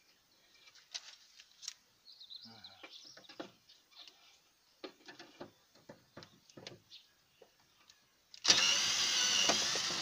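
Scattered faint clicks and knocks of tool handling. Then, about eight and a half seconds in, a cordless drill-driver with a Torx bit runs loudly for about a second and a half, undoing the bolt that holds the rear door's inner handle.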